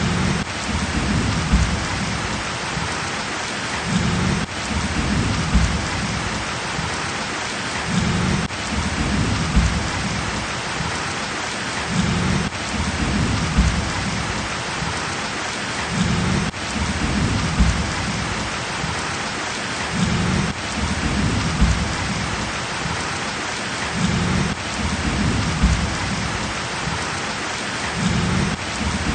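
Heavy rain falling steadily, an even hiss of downpour. A low rumble swells underneath about every four seconds.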